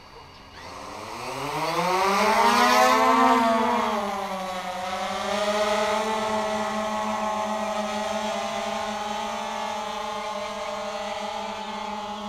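DJI Phantom 2 Vision Plus quadcopter's motors and propellers spinning up about half a second in, with a whine that rises in pitch and loudness for a couple of seconds. It then eases to a slightly lower, steady hum.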